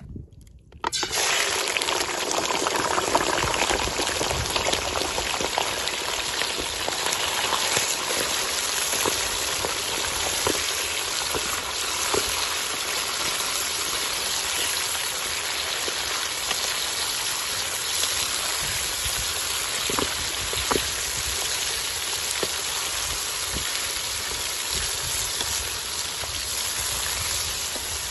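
Raw chicken pieces sizzling in hot oil in a karahi. The frying starts suddenly about a second in as the meat hits the oil, then goes on as a loud, steady sizzle with scattered pops and crackles.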